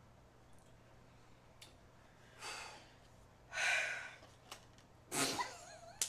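A person breathing out or sighing three times in a short pause, the middle one the loudest, with a few faint mouth clicks between.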